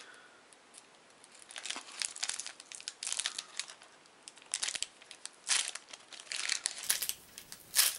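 A trading-card booster pack wrapper crinkling and tearing as a pen tip is worked into its crimped top seal, in short crackly bursts that begin about a second and a half in.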